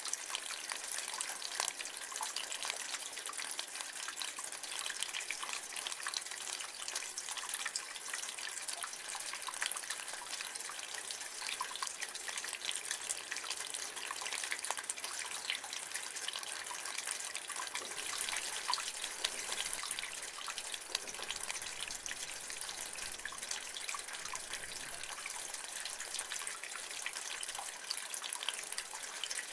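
Rainwater running and splashing from a gutter: a steady spatter with many small drips throughout.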